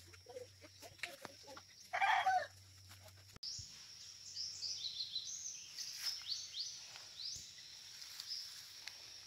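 A chicken calls once about two seconds in. After an abrupt cut in the sound, small birds chirp in quick, high notes that rise and fall.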